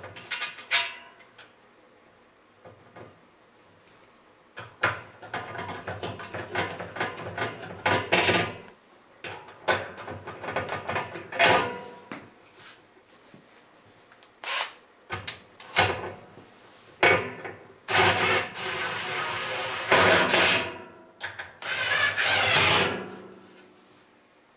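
Knocks and plastic-on-metal clatter as a replacement baffle is fitted to a dryer drum. About three-quarters of the way through, a cordless drill-driver runs steadily for about two seconds.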